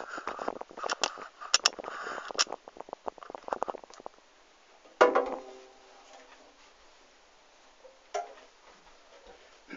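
Clicks and rustling of handling for about four seconds, then a single ukulele strum about five seconds in that rings out for about a second, and a fainter plucked knock near the end.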